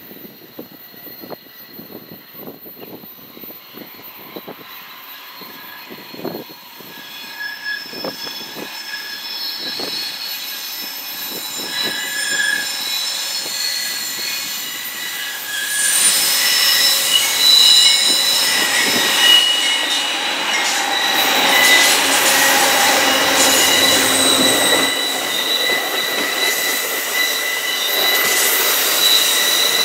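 Amtrak passenger train of Superliner cars rounding a curve, its wheels squealing against the rail in several steady high tones. It grows louder as the train approaches and the cars roll past.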